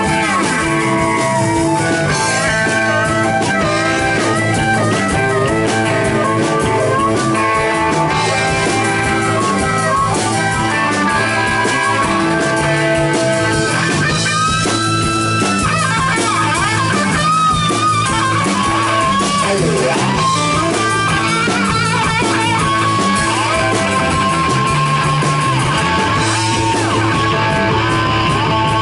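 Blues rock band playing live at a steady, loud level: electric guitar, bass guitar and drum kit, with a harmonica played into the vocal microphone over them.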